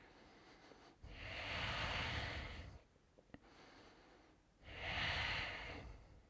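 A man breathing deeply while holding a pose: two long, even breaths of about two seconds each, the second starting about four and a half seconds in.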